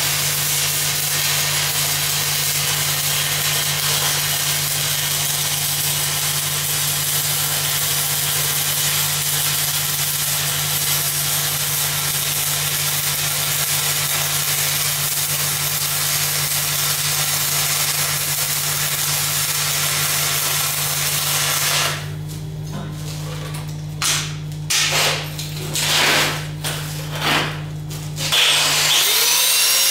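Shielded metal arc (stick) welding: the arc of a cellulosic 6010/8010-type electrode crackles and hisses steadily as it runs a downhill pass on 4-inch, 0.188-wall carbon steel pipe, with a steady low hum underneath. About 22 seconds in the arc breaks off; a few short scraping strokes follow, and near the end a loud steady scraping starts.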